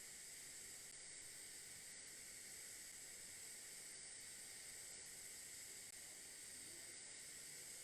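TIG welding torch running on a duplex stainless steel pipe root pass: a faint, steady hiss of the arc and shielding gas.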